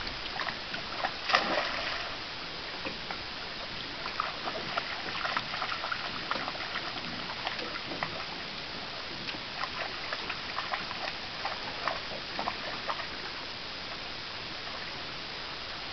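A boxer dog's legs splashing and sloshing as it wades through shallow water: scattered small splashes and trickles, the loudest a little over a second in, over a steady hiss.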